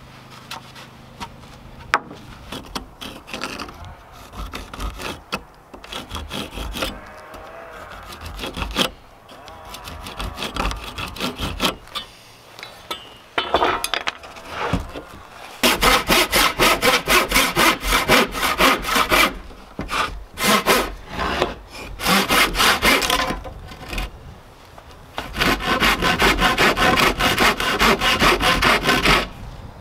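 Handsaw cutting a wooden board in quick back-and-forth strokes, starting about halfway and coming in three spells with short pauses. Before the sawing, light knocks and rubbing as the boards are handled.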